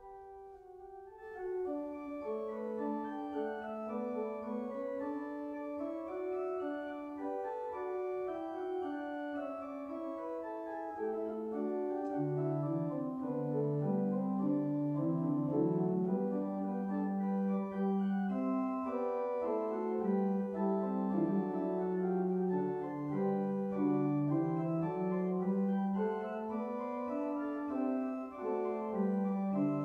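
Organ playing a slow piece of sustained chords. It comes in about a second in, and a lower bass line joins about twelve seconds in, making the playing fuller and louder.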